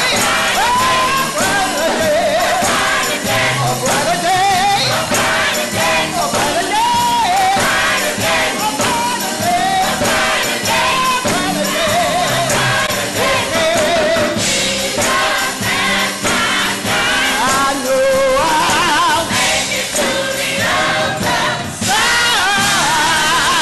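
Live gospel praise-and-worship singing: a woman leads the song into a microphone, with backing singers and a band with electric bass guitar and percussion.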